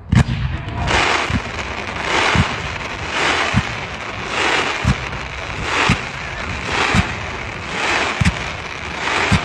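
Fireworks firing in a steady series, a sharp bang about once a second, each followed by a hissing crackle that swells and fades.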